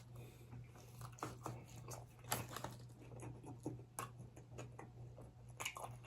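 Close-miked chewing and lip smacking while eating chicken wings: soft, irregular wet clicks and smacks.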